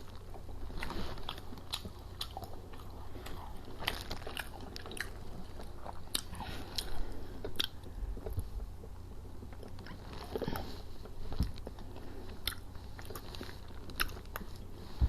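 Close-up eating sounds: biting and chewing fried food, with scattered small wet smacks and crunches.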